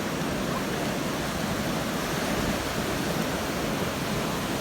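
Ocean surf breaking on the beach, a steady rushing noise with no separate event standing out.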